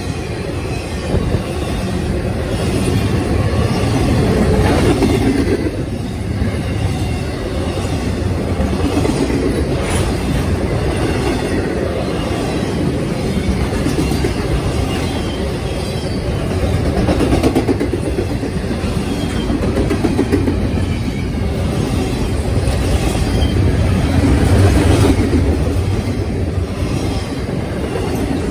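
Intermodal freight cars carrying trailers rolling past: a steady rumble of steel wheels on rail that swells and eases as the cars go by, with a few sharp clicks of wheels over the rail joints.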